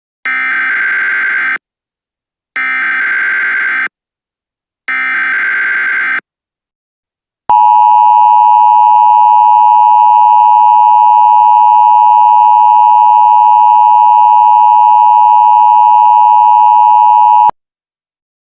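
Emergency Alert System header: three short bursts of SAME digital data tones, each about a second and a half long with short gaps between. After a brief pause, a loud steady EAS attention tone holds for about ten seconds and cuts off suddenly.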